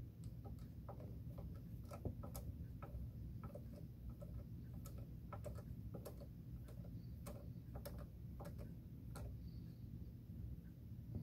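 Small screw being turned by hand with a precision screwdriver into a model ship's hull frame: faint, irregular little clicks and ticks as the screwdriver is twisted and regripped.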